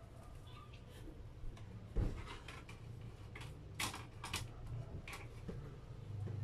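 Scattered knocks and clicks of someone moving about at a table, with a sharp thump about two seconds in and a few lighter knocks after it, over a low steady hum.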